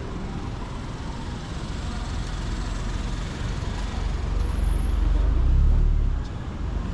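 Street traffic noise. A motor vehicle's low rumble swells, is loudest about five to six seconds in, and then falls away as it passes close by.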